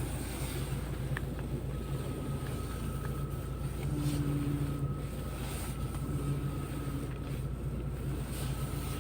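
UAZ Patriot engine idling warm on LPG. From about a second in, the power steering pump adds a steady high whine: the steering still howls in the frost.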